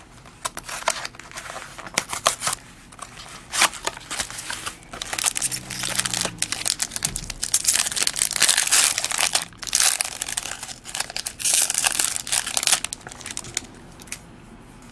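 Plastic wrapping being torn and crinkled as a sealed 2009-10 SP Game Used hobby box of basketball cards and its packs are opened, in irregular crackling bursts that are loudest in the second half.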